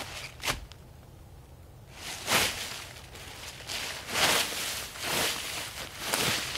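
Footsteps crunching and rustling through dry fallen leaves, one step about every second, after a short pause near the start.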